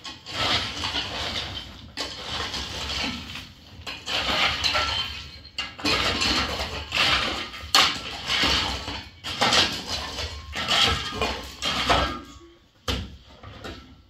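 Steel shovel and hoe scraping and chopping into dry, gravelly soil in irregular, overlapping strokes as an earthen floor is dug loose and levelled. The strokes thin out to a few sharp knocks near the end.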